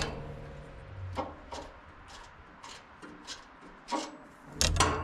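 Light metal clicks and scrapes from a Wood-Mizer sawmill's blade tensioner as the blade tension is taken off and the tensioning bushing is screwed tighter, with a low thud near the end.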